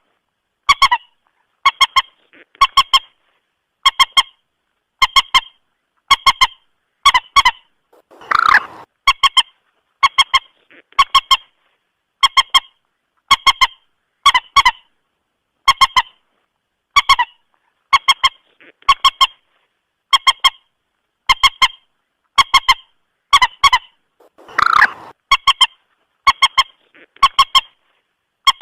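Mandar batu (common moorhen) lure call played loudly on a loop: short clucking calls of two or three quick notes, repeating about once a second, with a longer, harsher call about 8 seconds in and again near 25 seconds.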